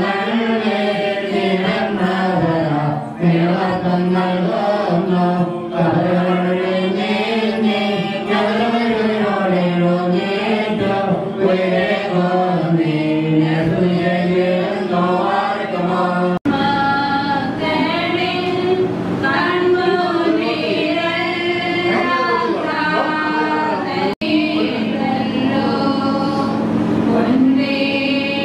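Funeral hymn sung by a man through a microphone with other voices joining in, a slow melodic chant over a steady low drone. The sound cuts out sharply for an instant about 16 seconds in and again about 24 seconds in, and after the first cut the voices sit higher.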